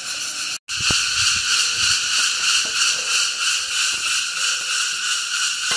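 Cicadas buzzing in the forest canopy: a loud, steady shrill chorus that pulses a few times a second. The sound cuts out completely for a moment just over half a second in, then returns louder.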